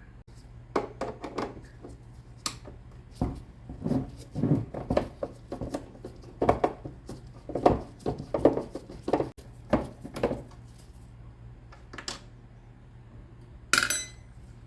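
Irregular clattering and knocking of hard plastic and metal parts being handled and set down while an espresso machine is taken apart, ending with a short metallic ring as a metal piece strikes something.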